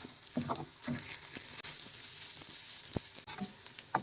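Egg roll frying in oil in a frying pan, a steady sizzle, with short scrapes and taps of a fork against the pan as the omelette is rolled up, including one sharp click about three seconds in.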